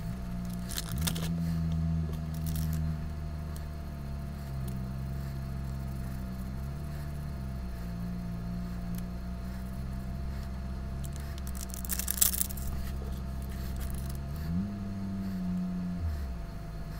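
Coloured gym chalk powder and glitter being sprinkled over crushed chalk blocks: soft rustling and gritty crackles, with a short burst near the start and a louder crumbling one about twelve seconds in, over a low steady hum that shifts pitch now and then.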